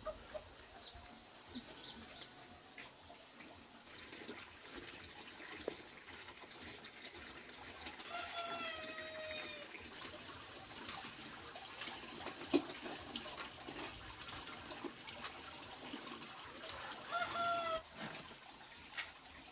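A rooster crowing twice: a long crow about eight seconds in and a shorter one near the end. Between the crows there are scattered light clicks and one sharp knock about halfway through.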